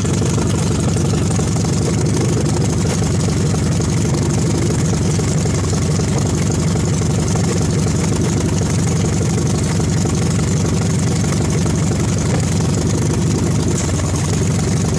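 1974 Yamaha XS650's air-cooled parallel-twin engine running steadily on its first start after a rebuild.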